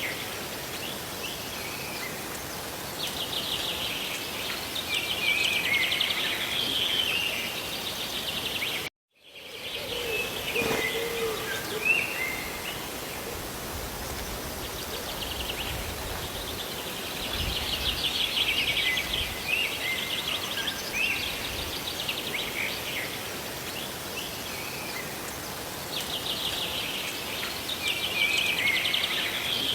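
Steady hiss of rain and falling water with songbirds singing rapid trilled phrases that recur every several seconds. About nine seconds in, the sound cuts out completely for a moment, then fades back in.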